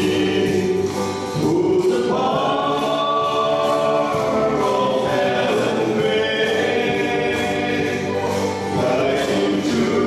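Male vocal quartet singing in harmony into handheld microphones, with long held notes.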